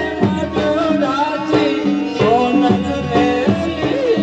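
Live Indian folk music played through a PA: a harmonium melody over sustained notes with a steady tabla-style drum beat.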